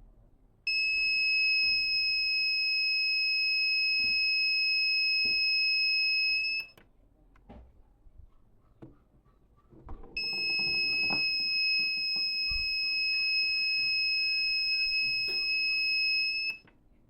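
A laser security alarm's buzzer sounds a steady, high-pitched continuous tone, twice, each time for about six seconds. The tone starts and stops abruptly, with faint clicks and handling noise in the gap between.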